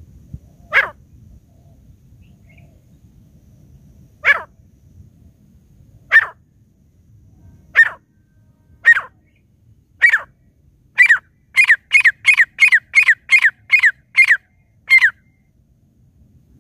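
Caged grey francolin (teetar) calling: loud, sharp notes that each drop in pitch, spaced a second or two apart at first, then quickening about two-thirds of the way through into a rapid run of about three a second before stopping.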